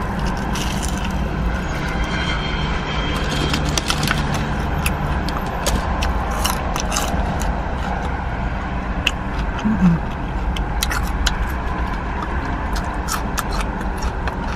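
Close-up chewing of crispy fried chicken, with scattered sharp crunches and mouth clicks, over a steady low rumble of outside traffic.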